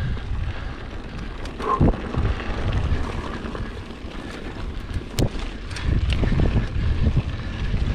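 Mountain bike ridden over a rough dirt trail: wind buffets the action camera's microphone with a heavy rumble, while the bike rattles and knocks repeatedly over bumps.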